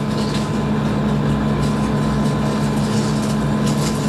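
Metal lathe running under cut, its tool turning a metal part and peeling off a curling chip: a steady motor hum and whine with a scratchy hiss from the cut that swells briefly about halfway through and again near the end.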